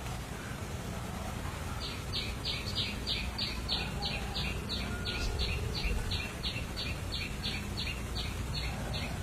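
A rhythmic series of short, high calls, about three a second, starting about two seconds in, from a small calling animal. Underneath is a steady low background rumble.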